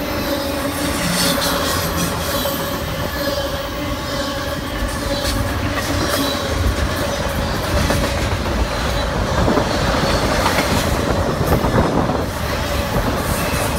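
Canadian Pacific freight train cars rolling past, wheels clicking over the rail joints, with a steady wheel squeal.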